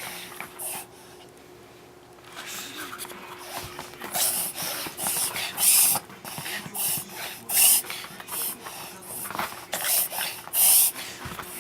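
A pet's noisy breathing: a run of sharp, hissing breaths at an uneven pace, roughly one or two a second, some of them loud, with a quieter pause of about a second near the start. The owner wonders whether it is a reverse sneeze.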